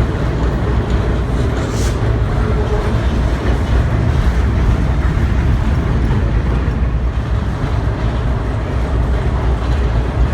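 Steady low rumble of a moving passenger train, heard from aboard, with a brief high hiss about two seconds in.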